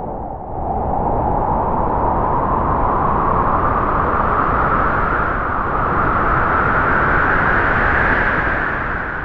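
Spooky Halloween sound effect: a long, loud rushing noise that starts abruptly, swells while its pitch slowly rises, and begins to fade near the end.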